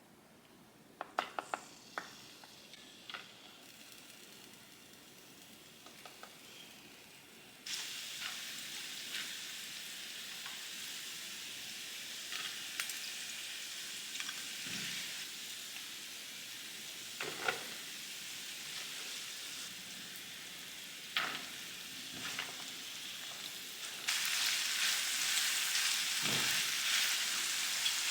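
Food sizzling in hot oil in a frying pan, with a few knocks of a utensil against the pan as it is stirred. The sizzle starts about a quarter of the way in, after a few clicks, and gets louder near the end.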